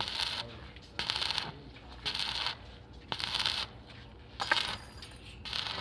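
Welding arc crackling and hissing in short bursts of about half a second, roughly one a second, as the steel frame is stitch-welded.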